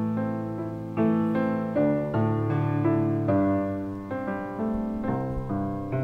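Piano playing the slow introduction to a hymn, with sustained chords and new notes struck about once a second.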